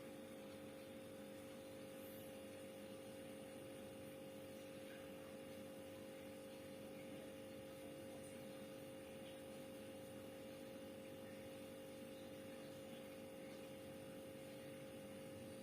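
Faint steady hum of a Sharp two-door refrigerator running while it cools down, its condenser side warm.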